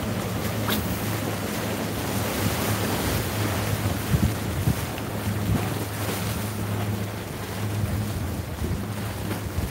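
Boat engines running as motorboats pass through the inlet, a steady low hum, under wind buffeting the microphone and the wash of waves on the jetty.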